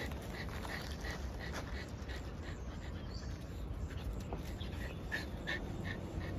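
Several dogs whimpering and panting, with short high whines coming quickly, about three a second, in the first second and a half and again from about five seconds in.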